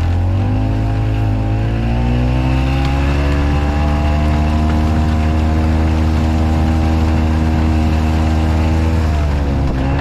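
Harley-Davidson golf car's engine speeding up as the cart pulls away. It runs at a steady pitch while driving, then eases off and drops in pitch near the end.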